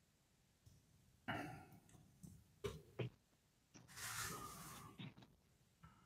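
Near silence with faint breaths and soft handling noises: a short hiss, two small knocks, then a longer airy breath-like hiss about four seconds in.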